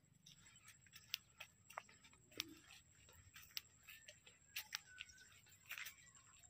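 Near silence broken by faint, irregular clicks and light rustles of footsteps on a narrow dirt path and rice stalks brushing past, over a faint steady high-pitched tone.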